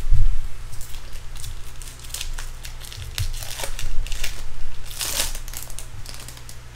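Crinkling and rustling of baseball card pack wrappers and cards being handled, in irregular short bursts with the loudest crinkle about five seconds in, over a steady low electrical hum.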